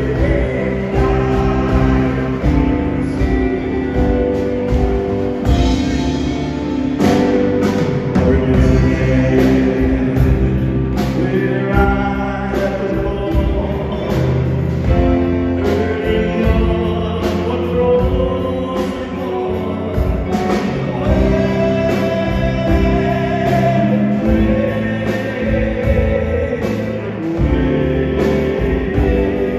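A live band playing, with a group of men singing together over keyboard, horns and drums.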